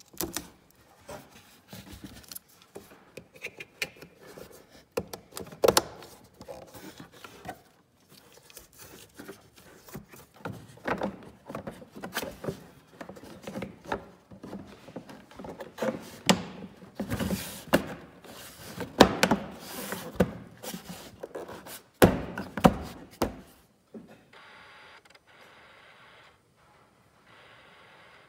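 Hands handling and fitting the plastic dash parts of a Sea-Doo RXT-X/RXP-X 260 gauge cluster: irregular plastic clicks, knocks and rubbing as the cluster's ribbon cable is routed and the housing is pressed into place. The knocks are loudest a little past the middle, and the sound turns much quieter for the last few seconds.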